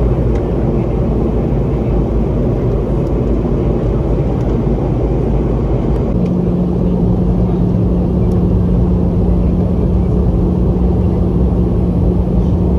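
Steady engine and airflow noise inside the cabin of a Boeing 717-200 with its rear-mounted Rolls-Royce BR715 turbofans running. A steady hum joins the noise about six seconds in and holds.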